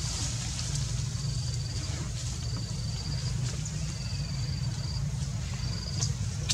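An insect trilling in short, high-pitched buzzes about once a second, over a steady low rumble.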